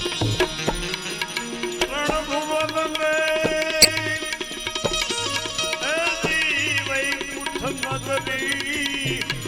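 Instrumental bhajan music: a melody instrument playing sliding, ornamented notes over a steady tabla rhythm. A single sharp click sounds about four seconds in.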